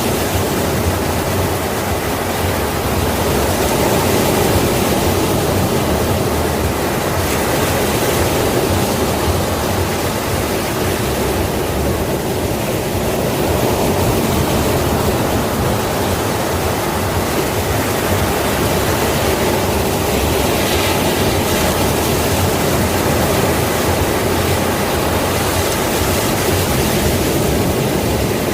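Sea waves breaking and washing on a shore: a continuous rush of surf that swells and eases gently over several seconds.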